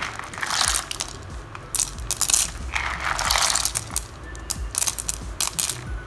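Raw clams in water stirred and scooped by hand in a plastic bowl, the shells clattering and clicking against each other and the bowl in irregular bursts.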